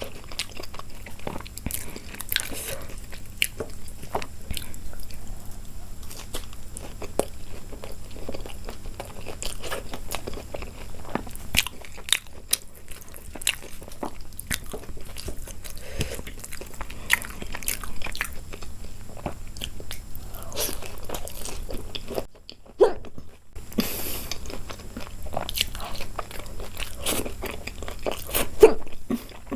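A person eating close to the microphone: chewing and biting, with crunches and many short sharp clicks. The sound drops out briefly about three quarters of the way through.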